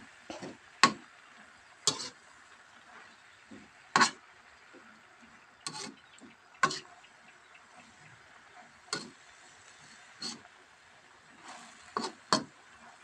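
Plastic spatula knocking and scraping against a wok while stir-frying water spinach: about ten short, irregular clacks over a faint steady sizzle.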